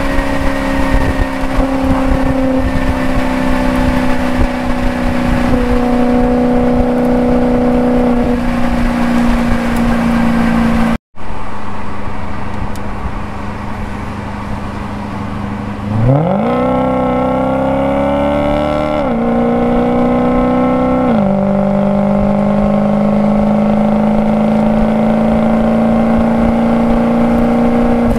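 Maserati Quattroporte GTS V8 engine and exhaust running hard at speed. The engine note steps in pitch at gear changes, then after a brief dropout the revs rise sharply about sixteen seconds in, as under kickdown acceleration. Two upshifts follow, and the car settles into a steady note that climbs slowly.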